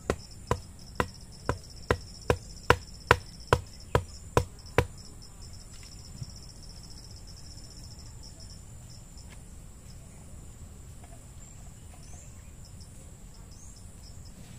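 Steady chirring of insects, with a run of twelve sharp strikes at an even pace of a little over two a second that stops about five seconds in.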